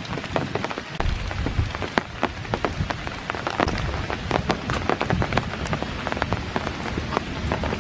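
Steady rain falling, with many sharp raindrop ticks close by and a low rumble underneath from about a second in.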